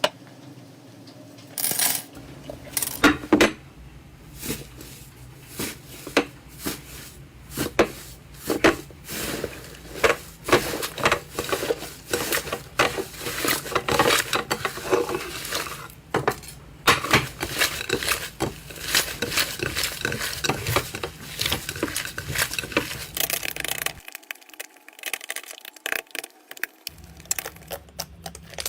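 Slime being pressed and worked by hand, giving off a dense run of irregular sharp clicks and pops.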